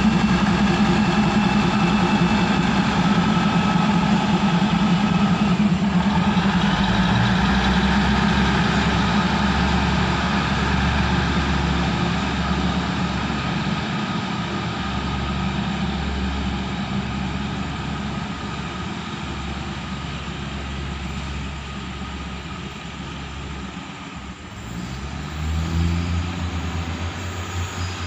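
Diesel engines of a State Railway of Thailand THN diesel railcar train running steadily as the train pulls away, the drone slowly fading as it recedes. About 25 seconds in, a deeper engine note swells.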